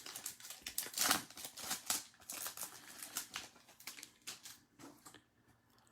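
Glossy Topps Chrome trading cards being flipped through by hand, a run of quick slides and clicks that thins out toward the end.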